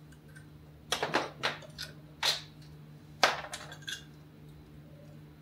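Small metal parts and a metal roller mount plate clinking and tapping against each other as the top rollers and their bolts are taken off: a scatter of about seven short, light clinks, the loudest about three seconds in.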